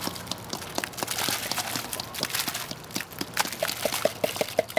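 Cornstarch poured into a plastic wading pool of soapy water: a rushing, splashing pour with scattered sharp clicks. Toward the end a quick run of short pitched pips, about four a second, sets in.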